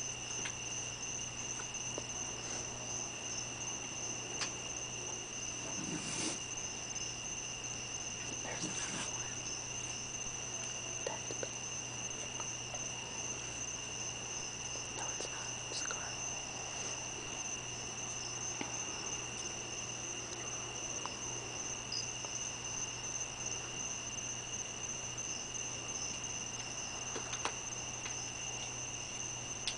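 Steady night chorus of calling insects, a continuous high-pitched trill. A few soft knocks and rustles break in now and then.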